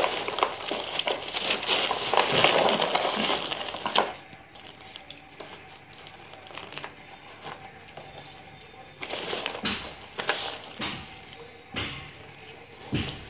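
A hand stirring and scooping through a cardboard box full of slate pencil sticks, the sticks clattering against one another. The clatter is dense for the first four seconds, thins to scattered clicks, and comes back in a second dense burst about nine seconds in.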